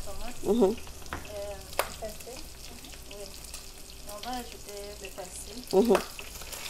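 Meat sizzling as it browns in oil in a pot on a gas stove, stirred with a wooden spoon, with a couple of sharp clicks about one and two seconds in.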